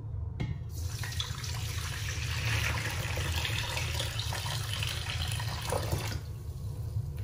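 Water poured from a plastic pitcher into a stainless steel mixing bowl, splashing steadily onto TSP powder as the bowl fills; the pour stops about six seconds in.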